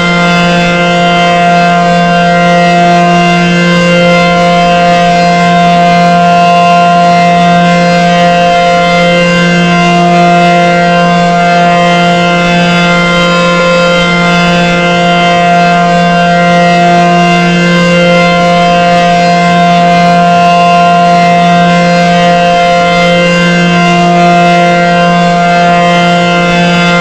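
ACA Banshee 115 outdoor warning siren sounding the steady Alert signal: one loud tone holding a constant pitch, with a slight waver every four to five seconds.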